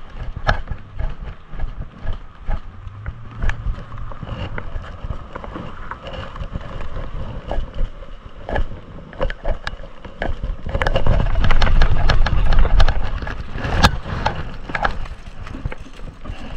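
Baitcasting rod and reel being worked while a bass is reeled in from a kayak, with many small clicks and knocks of the reel and rod. A louder low rumble on the microphone comes about two-thirds of the way in.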